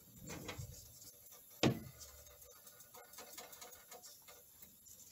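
Silicone spatula stirring and scraping beaten egg in a nonstick frying pan, with faint light scrapes and ticks and one sharp knock about a second and a half in.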